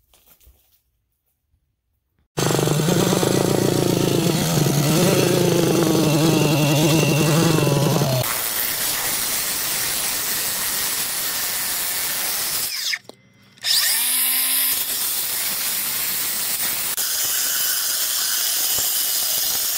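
DeWalt FlexVOLT 60V cordless cut-off saw starting up about two seconds in and cutting through a stone paver block. At first it makes a loud, steady whine with a clear pitch, then a harsher grinding hiss as the blade works through the stone. It stops for about half a second two-thirds of the way through, then starts again.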